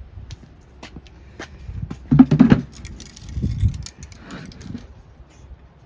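Metal tools clinking and being handled, with scattered sharp clicks and a louder clatter about two seconds in.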